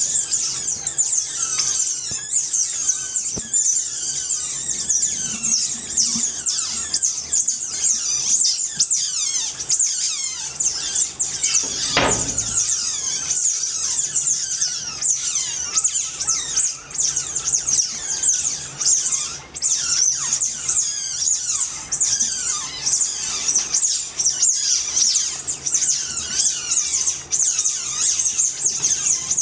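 Asian small-clawed otters squealing: a constant stream of shrill, high-pitched chirps and squeaks, many of them quick falling notes.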